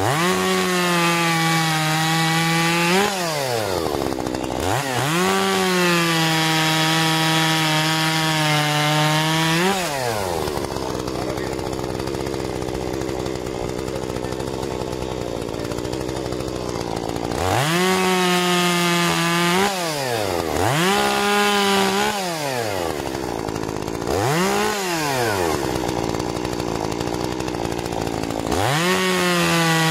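Solo 6651 two-stroke chainsaw revving up to full throttle and cutting firewood logs on a sawbuck. Each cut holds a steady high whine for a few seconds. Between cuts the saw drops back to idle, and in the second half it gives several shorter bursts of throttle.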